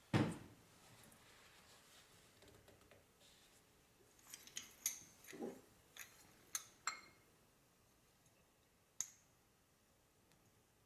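A soft knock as a jar is set down on the countertop, then small metallic clicks and clinks as the spring and cast housing halves of a turbo actuator are handled and fitted together: a run of them midway and one more near the end.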